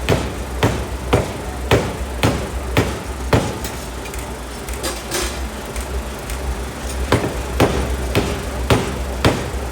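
A 750 kg pneumatic forging hammer strikes a steel die-plate blank in a steady rhythm of about two blows a second, over a constant low machine hum. The blows pause for about three and a half seconds midway, with a short hiss, then resume.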